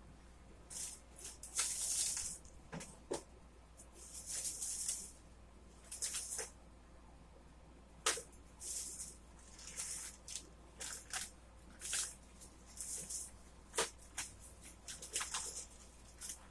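Plastic action figures and their packaging being handled: irregular short crinkling rustles mixed with light clicks and taps.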